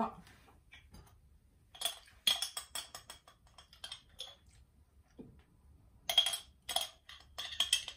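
A spoon clinking and scraping against an olive jar as olives are dug out, in two quick runs of taps with a short ringing note: one about two seconds in, the other from about six seconds in to the end.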